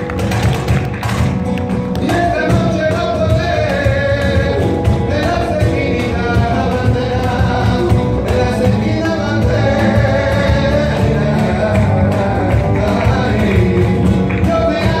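Live flamenco music: a man's voice singing over acoustic guitar and hand percussion. Sharp percussive taps stand out over the first two seconds, and the singing comes in about two seconds in.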